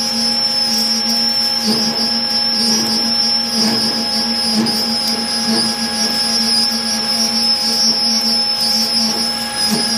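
Manual lathe running under cut as a carbide form tool machines a ring-type joint (RTJ) groove in Inconel, giving a steady high-pitched whine over the machine's hum and a constant hiss.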